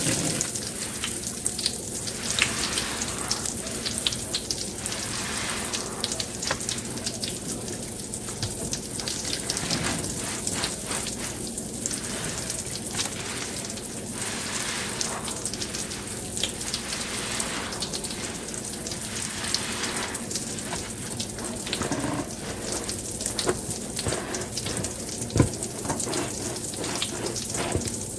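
Wet, soapy crackling and fizzing, a steady mass of tiny pops with occasional stronger wet swells.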